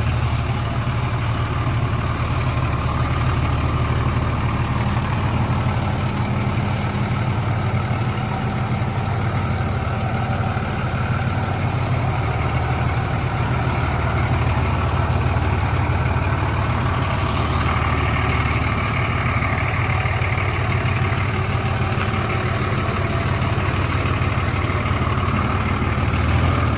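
Dodge Ram 2500 pickup engine idling steadily.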